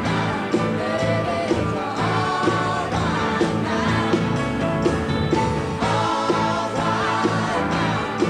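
Pop song with a singing voice over a band with a steady drum beat.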